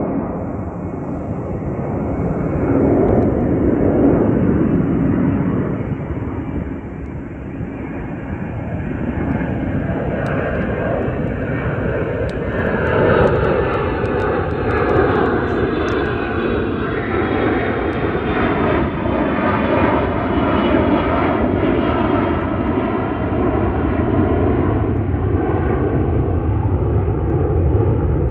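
An engine drone over a steady low rumble. From about halfway through, its pitch slowly slides down.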